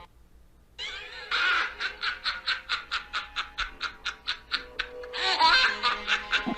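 Witch's cackling laugh: after a short pause about a second in, a fast run of high 'ha-ha-ha' pulses, about five a second, rising to a louder burst near the end.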